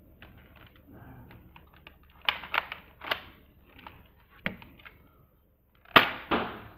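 Sharp plastic clicks of a Nerf Rebelle crossbow blaster being loaded and primed, then firing about six seconds in with a loud snap, followed by a second clack a moment later.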